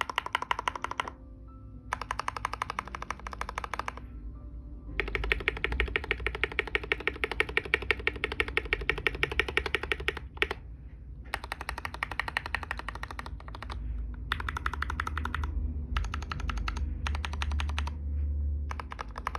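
Fast typing on a TM680 mechanical keyboard kit fitted with freshly lubed Gateron Milky Black linear switches: quick runs of keystrokes in several bursts with short pauses between them. The keys sound clean and a little deep, without any scratchy plastic-on-plastic friction.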